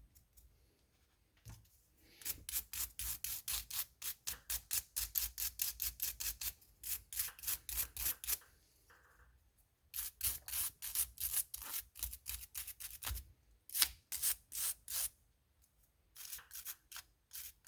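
Hand scrubbing of a small-engine carburetor part, the float bowl or float, in quick back-and-forth strokes of about four or five a second. It comes in three bouts with short pauses between.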